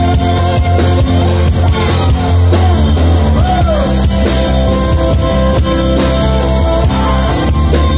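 Live rock band playing loudly: electric guitar, bass guitar and drum kit, with a heavy bass and a few sliding notes a few seconds in.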